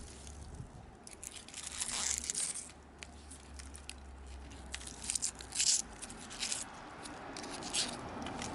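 Hands working with potting soil and plants, giving intermittent rustling and scraping in short bursts, the longest about a second in and another a little after five seconds. A faint low hum runs underneath until about six seconds in.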